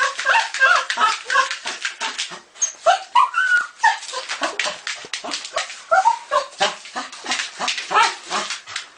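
Dog yipping, whining and barking in rapid short bursts, the calls sliding up and down in pitch.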